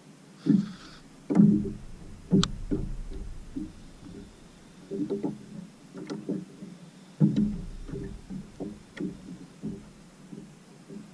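Irregular knocks and light thumps on a plastic Hobie fishing kayak and the rod gear mounted on it as the kayak rocks at sea, some in quick clusters, with short low rumbles about a second and a half in and again about seven seconds in.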